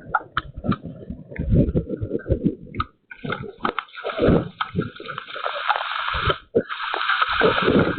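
Rain and hail storm: scattered sharp hits and low thumps at first. About three seconds in, a steady heavy downpour hiss sets in and keeps going, with low thumps underneath and a brief dip a little past six seconds.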